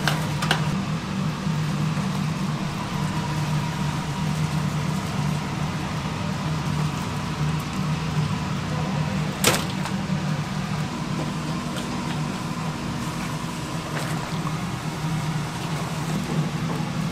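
Steady low hum of a food stall's cooking equipment under a steaming stock pot. A single sharp metal clink comes about nine and a half seconds in, as the wire-mesh strainer knocks the steel pot.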